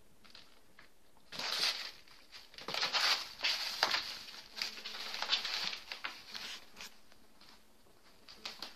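Kittens scrabbling about on the cardboard floor of a box, a scratchy rustling of paws and claws on cardboard and cloth in irregular bursts from about a second and a half in until about seven seconds, with a few faint scratches near the end.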